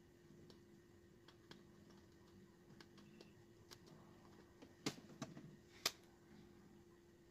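Small clicks and taps of hands handling a TV circuit board and hand tools, scattered and faint, with three sharper clicks about five to six seconds in, over a faint steady hum.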